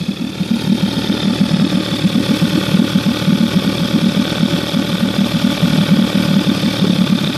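1967 Evinrude 18 hp two-cylinder two-stroke outboard motor idling steadily, with a fast, even pulsing beat.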